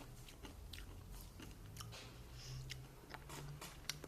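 Raspberry Nerds candy being chewed in the mouth: faint, irregular small crunches.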